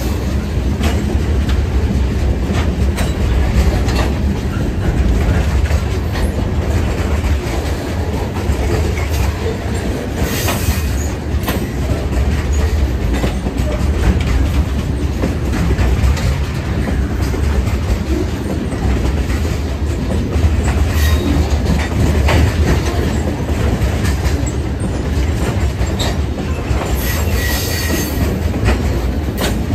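Open-top hopper cars of a CPKC freight train rolling past close by. Their steel wheels keep up a steady low rumble and click over the rail joints. A brief high squeal from the wheels comes about ten seconds in and again near the end.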